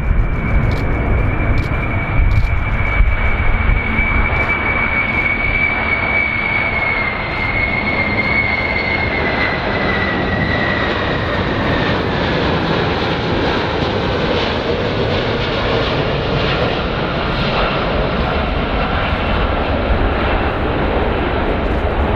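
Four jet engines of a Boeing 747 VC-25A on landing approach: a steady roar and rumble with a high whine that drops in pitch about halfway through as the jet passes.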